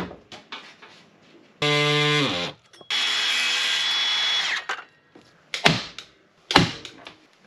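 Cordless DeWalt circular saw trimming the bottom of a piece of RV slide trim. The motor spins up briefly and winds down, then cuts for about a second and a half with a steady high whine. A few sharp knocks follow near the end.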